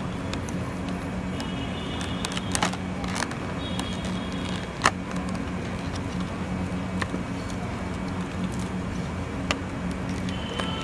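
A steady low hum of an idling engine, with scattered sharp clicks and taps and a louder click about five seconds in.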